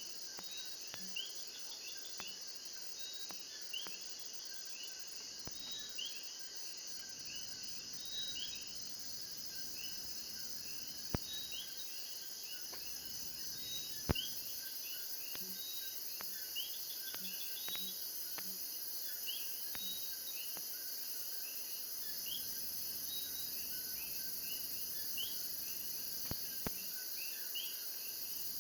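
Chorus of coquí frogs giving short rising chirps about once a second, over a steady high-pitched drone of crickets and other insects. About nine seconds in the highest buzz grows louder. A few sharp clicks are heard, the loudest in the middle and near the end.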